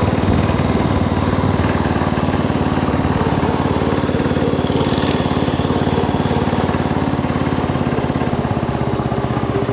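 Hot rod tractor's engine running steadily while being ridden, its firing pulses even throughout.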